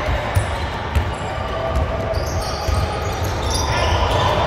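Basketball dribbled on a hardwood gym court: repeated low thuds in a large hall.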